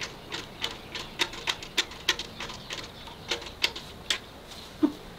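Newborn calf sucking milk from a metal bucket: quick wet smacks, about three a second, that stop about four seconds in. One dull knock comes shortly before the end.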